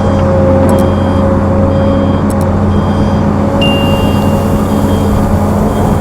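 Heavy diesel machinery engine running steadily, with a warning alarm beeping about once a second over it. A brief thin whistle-like tone sounds about halfway through.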